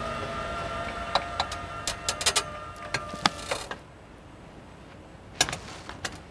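Held notes of background music die away about two-thirds of the way in. Scattered sharp clicks and knocks run through, with a quick cluster in the middle and a clearer knock near the end.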